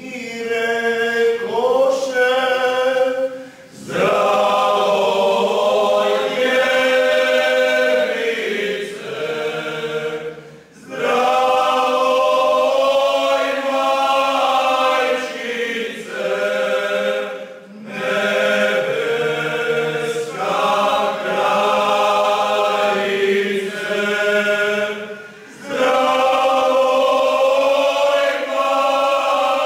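Croatian men's folk vocal group singing unaccompanied in several-part harmony, in long phrases broken by brief breath pauses every six to eight seconds.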